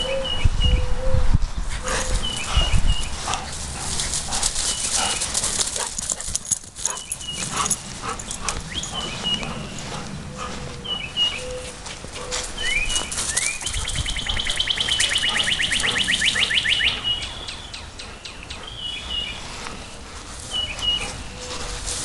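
Small birds chirping again and again, with a fast trill lasting a few seconds about two-thirds of the way in, over rustling and scattered clicks. There are low rumbling thumps in the first few seconds.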